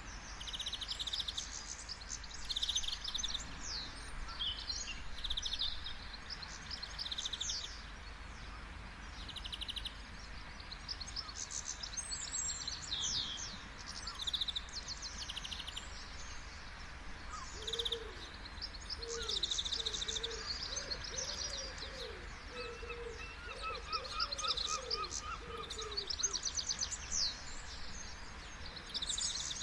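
Steady wash of ocean surf with many small birds chirping and trilling over it. In the second half a low series of short hooting notes comes in.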